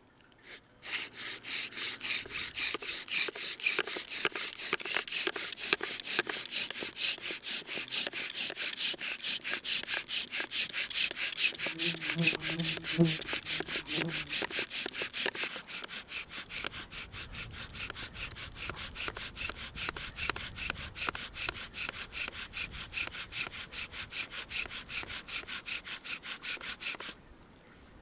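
Bow drill at work: a wooden spindle grinding into a hearth board, driven by quick back-and-forth strokes of the bow, its top turning in a ball bearing set into a Swiss Army knife. The rhythmic rasping starts about a second in and stops suddenly near the end.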